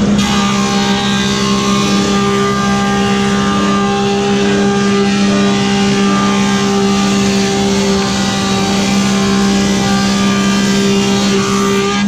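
Woodmaster 725 planer with a helical cutterhead planing a rough hardwood board: the machine's steady hum with the continuous hiss of the cut, which starts just after the board is fed in and stops near the end as the board runs out.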